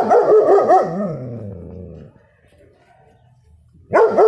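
Six-month-old German Shepherd puppy barking loudly in a quick run of barks that trail off into a drawn-out falling note, about two seconds long. A second run of barks starts near the end.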